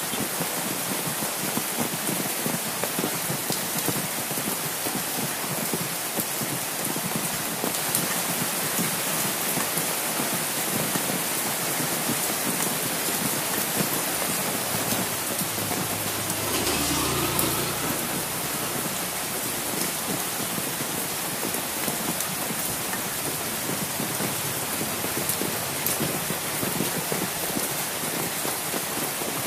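Steady heavy rain pattering close on an umbrella, a dense even hiss of drops. A brief low rumble passes a little past halfway.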